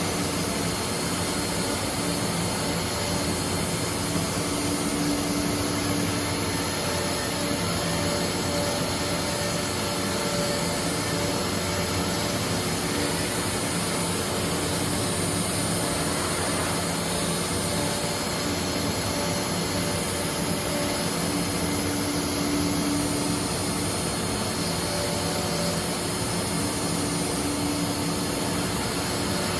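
CNC router running steadily: a constant rushing machine noise with a steady spindle whine, and a low hum that grows stronger and weaker at times.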